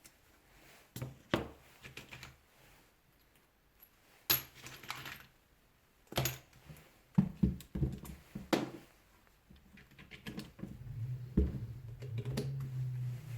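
Scattered clicks, taps and clatter of small metal tools, screws and housing parts being handled while a rotary hammer is dismantled. A steady low hum comes in near the end.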